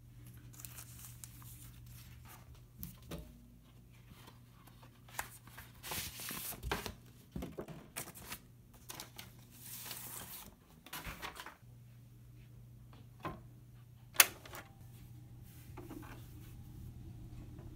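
A vinyl LP being handled: the plastic outer sleeve and paper inner sleeve rustle and crinkle in several bursts as the record is slid out, with scattered light knocks. Late on there is one sharp click, the loudest sound. A low steady hum runs underneath.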